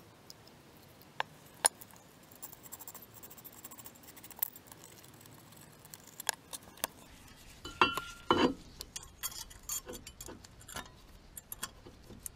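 Metal tools and brake hardware being handled: scattered light clicks and taps, then a cluster of ringing metallic clinks about eight seconds in.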